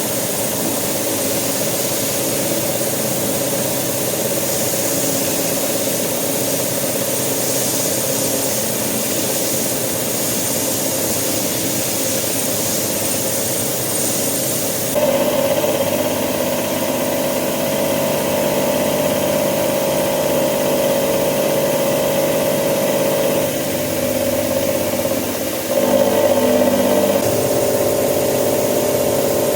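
Hitachi Seiki VM50 CNC machining centre milling a steel mold block with a 35 mm cutter at 1000 rpm: a steady cutting drone with ringing tones. It shifts abruptly to a louder, different pitch about halfway through, and again near the end.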